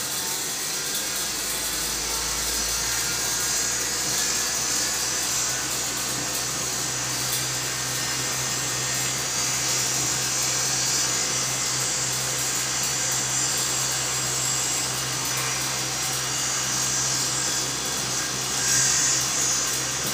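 Cotton candy machine running steadily, its motor and spinning head whirring with a low, even hum while the melted sugar comes out as floss.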